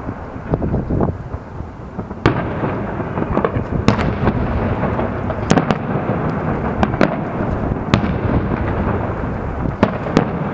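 Aerial fireworks salute: shells bursting in a run of sharp cracks, about one a second, over a continuous low rumble of bursts and their echoes.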